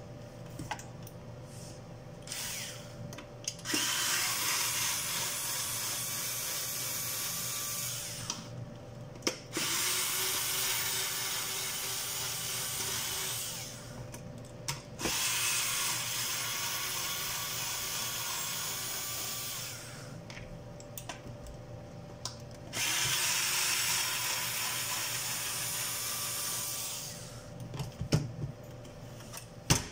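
Cordless electric screwdriver running in four separate bursts of about four to five seconds each, backing out the screws of a plastic device casing, with a few small clicks and knocks in the pauses between.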